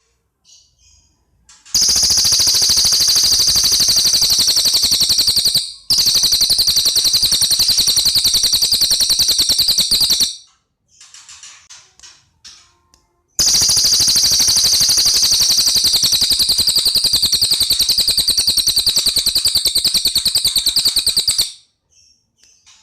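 Songbird singing in two long, loud bursts of dense rapid-fire trilling, each note repeated many times a second at a high pitch, with a brief break in the first burst. Softer, scattered chirps come between the bursts.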